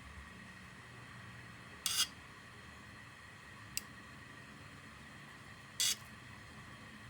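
Three brief sharp sounds, about two seconds apart, over a faint steady hum; the middle one is a very short click.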